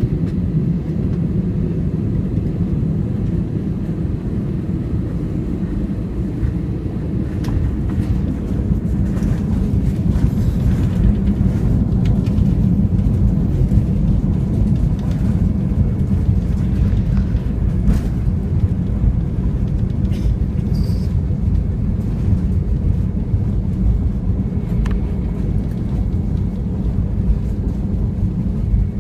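Steady low rumble of an Airbus A320's CFM56 turbofan engines and airflow, heard inside the cabin during landing. It grows a little louder for several seconds midway.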